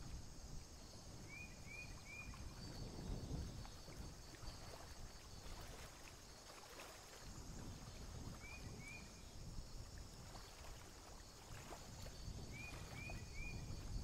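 Faint outdoor wetland ambience: a low, uneven rumble of wind on the microphone under a steady, faint, high-pitched pulsing trill. Three times a small bird gives a quick run of two or three short rising chirps.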